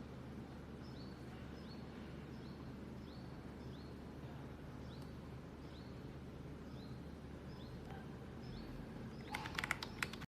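A small bird repeating a short, high, falling chirp about twice a second over a low steady hum, with a quick burst of sharp clicks near the end.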